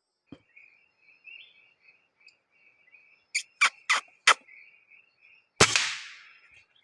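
Birds chirping steadily at a high pitch, then four sharp loud clicks in quick succession. About two seconds later comes a single sharp shot, the loudest sound, from a PCP K2 air rifle, trailed by a rustling that fades over about a second.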